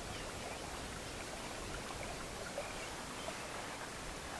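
Faint, steady outdoor background noise at the water's edge, an even hiss with a few tiny ticks.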